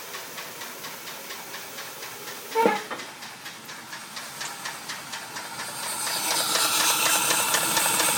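Used replacement engine in a 2004 Dodge Durango running with a rapid, even tapping, and a hissing rush that grows louder about six seconds in. The engine has a dead miss, which the owner suspects is making it tap.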